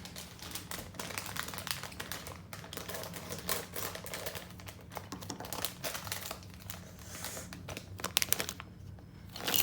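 Plastic minifigure blind bag crinkling and rustling as it is handled and opened, a dense run of small crackles that grows louder near the end.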